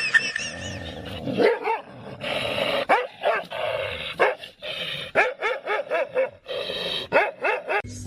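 A dog barking and yipping in a run of short, quick barks, several a second in places.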